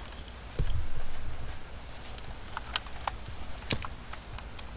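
Light scattered clicks and taps from handling small parts and tools, with a dull low bump about half a second in.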